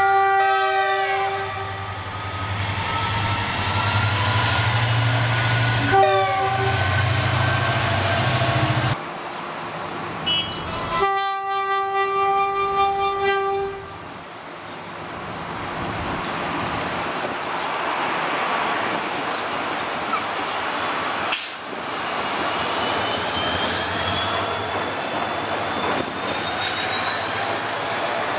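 Diesel locomotive horns blowing as trains pass close, the horn dropping in pitch as the locomotive goes by, with the rumble and rail clatter of the passing train. A second long horn blast comes about 11 seconds in, then a steady train rumble with a high whine rising in pitch near the end.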